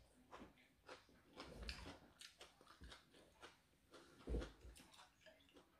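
Quiet eating sounds: chewing and short wet mouth clicks, with a few soft low knocks, the loudest about four seconds in.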